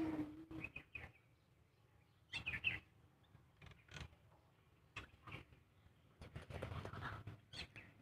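Faint, scattered chirps of small birds, a few short calls at a time, with some faint clicks between them.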